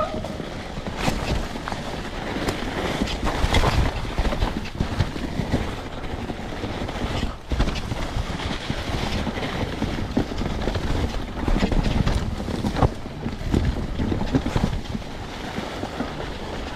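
Trek Rail electric mountain bike ridden down a snowy, muddy forest trail: tyres rolling over snow and leaves, with repeated knocks and rattles from the bike over bumps and wind buffeting the microphone.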